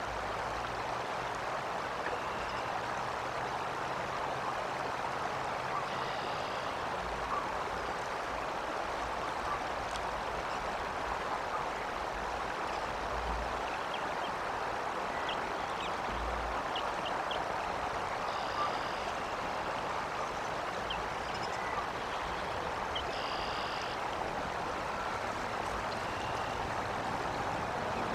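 Steady outdoor rushing noise at a nest microphone, with faint high bird chirps and short calls a few times.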